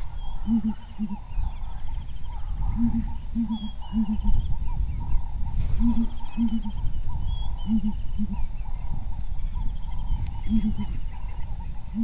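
Southern ground hornbills booming: deep, short hoots in groups of two or three, repeated every few seconds.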